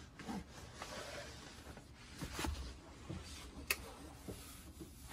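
Faint handling and movement noises: rustling with several small knocks and clicks, the sharpest click a little past halfway.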